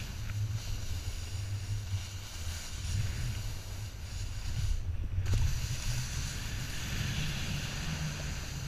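Snowboard sliding and carving over packed snow, a steady hiss and scrape that briefly drops out about five seconds in, with wind buffeting the action camera's microphone as a low rumble.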